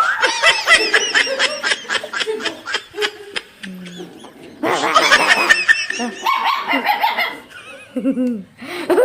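A dog barking in quick runs of short, repeated barks, the longest run at the start and another about five seconds in.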